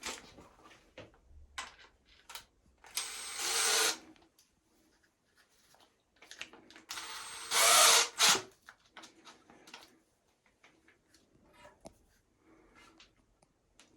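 Power drill run in two short bursts of about a second each, a few seconds apart, with small handling clicks and knocks between.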